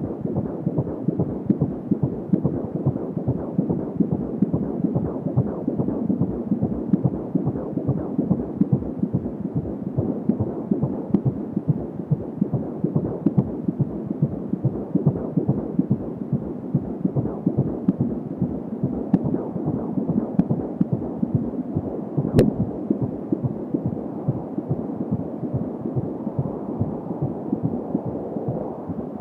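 Fetal heartbeat at 16 weeks of pregnancy, picked up by a Doppler ultrasound monitor: a rapid, steady pulsing beat. One sharp click comes about three-quarters of the way through.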